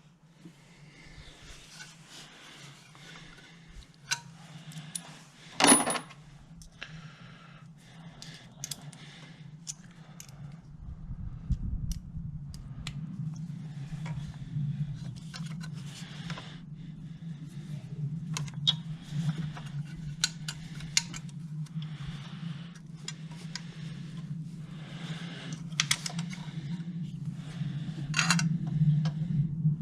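Small metal tools and parts clinking and clicking as an ignition coil and its leads are handled and fitted in a car's engine bay, with a sharp loud click about six seconds in. A steady low hum runs underneath, louder in the second half.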